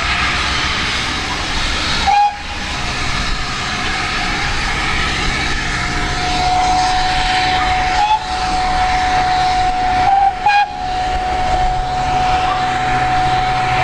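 Steam locomotive whistle sounding in the distance: a short toot about two seconds in, then a long, steady single-note blast held for about seven seconds, over a steady rushing noise from the approaching train.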